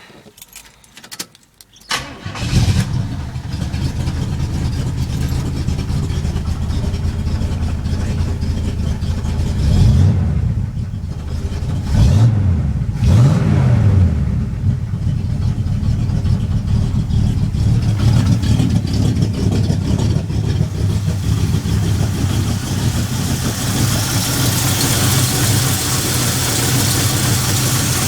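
Oldsmobile 455 V8 cranking and catching about two seconds in, then running at a steady idle with a few quick revs near the middle. The owner says the engine has a knock.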